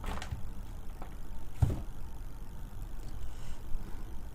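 A few soft knocks and taps from handling a small phone while a call is set up, the clearest a low thump about one and a half seconds in, over a steady low hum.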